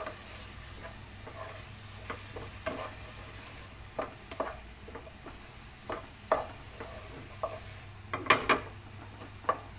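Wooden spoon stirring semolina and potato in a hot nonstick pot: irregular short scrapes and taps against the pot, with a quick run of louder knocks near the end.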